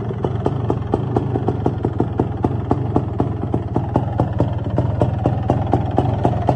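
Suzuki LT500R Quadzilla's 500 cc two-stroke single-cylinder engine idling steadily, with sharp, evenly spaced pops about four or five times a second.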